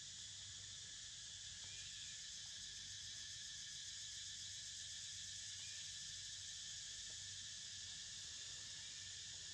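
A steady, faint, high-pitched chorus of insects.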